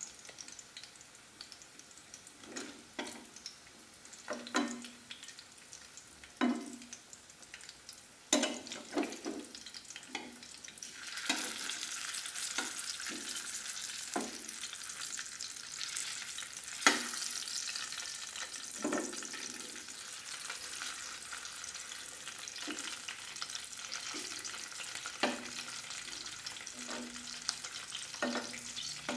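Chicken pieces frying in a pan of hot oil, with a metal spatula scraping and knocking against the pan as the pieces are turned. The sizzle grows louder about eleven seconds in and stays up.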